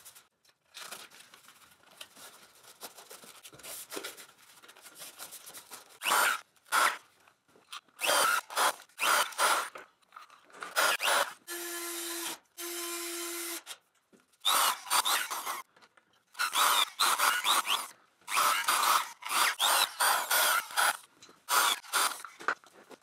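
Foam pipe insulation sleeves being pushed and slid over composite water pipes, making a run of irregular scraping and rustling sounds. About halfway through, a cordless drill runs twice, briefly, under a second each time.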